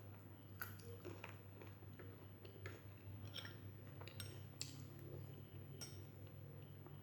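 Close-up eating sounds: soft chewing with about eight scattered sharp clicks and light clinks of tableware, over a low steady hum.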